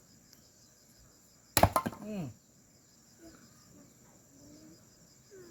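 A single sharp chopping blow about a second and a half in, splitting a log of red firewood. Crickets or other insects shrill steadily behind it.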